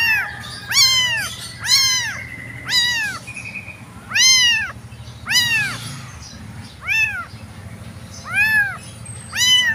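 Young tabby kitten meowing over and over, about nine high calls each rising and then falling in pitch, roughly one a second: the crying of a small kitten left without its mother.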